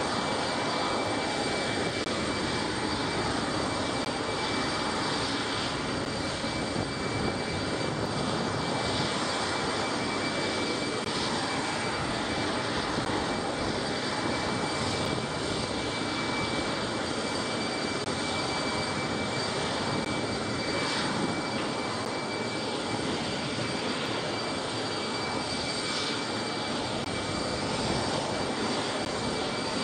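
Turbofan engines of an Antonov An-124 cargo jet running steadily on the ground: an even rush with a steady high whine.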